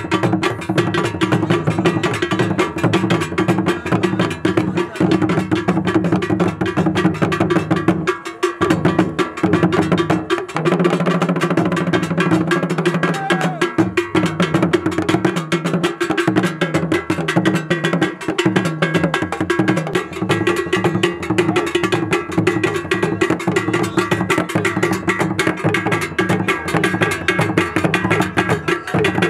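Ewe traditional drum ensemble: barrel drums beaten with curved wooden sticks under hand-held iron bells struck in a fast, steady repeating pattern. The playing breaks off for a moment about eight seconds in, then carries on.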